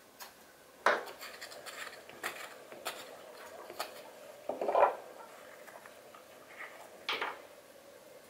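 A kitchen knife peeling strips of skin off eggplants over a wooden cutting board: short clicks and scrapes of the blade, with louder knocks on the board about a second in, around the middle and near the end.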